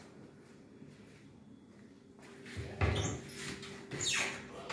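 Wooden kitchen wall-cupboard door being handled and opened. It is quiet at first, then a few knocks and clatters come past the halfway point, and a short falling sound near the end.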